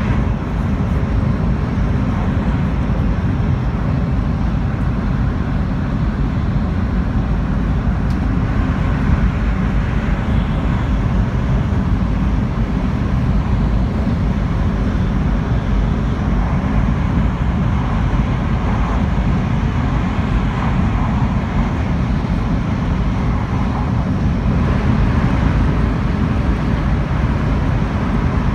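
Shinkansen bullet train running at about 300 km/h, heard inside the car: a steady, loud rumble of running noise that holds level throughout.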